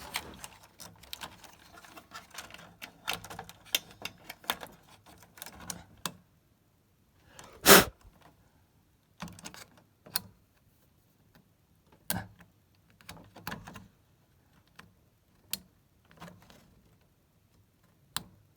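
Scattered small clicks and taps of hand tools and parts being handled on a circuit board, busier in the first six seconds and sparser later, with one louder sharp snap about eight seconds in.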